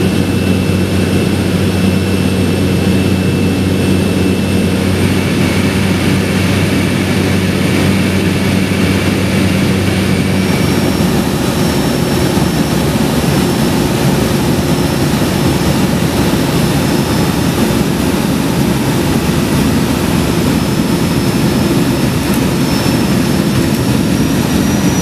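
Floatplane's engine and propeller running steadily and loudly. Its tone shifts about ten seconds in, from a clear low drone to a rougher, noisier sound.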